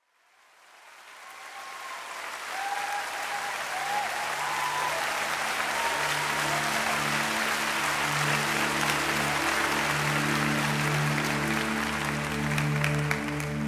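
Audience applause and cheering fading in, with a few short calls from the crowd, as a sustained low instrumental chord starts under it about three seconds in: the opening of a live performance.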